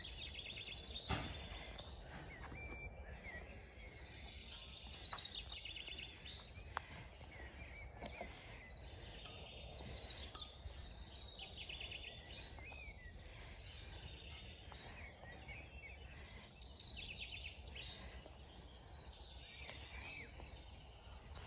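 Birds singing and chirping in repeated short trills, faint, over a low steady background rumble, with scattered small clicks and rustles from puppies playing with cloth toys.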